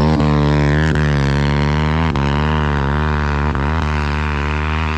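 190cc pit bike's single-cylinder four-stroke engine running at a steady, held throttle, its pitch wavering slightly. A few short knocks come through over it.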